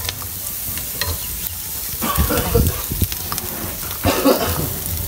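Food sizzling as it cooks, with scattered light clicks.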